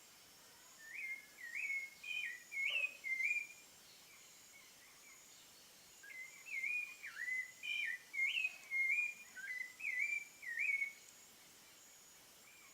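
Thrush singing two phrases of short, slurred whistled notes: the first begins about a second in, the second about six seconds in, each lasting a few seconds.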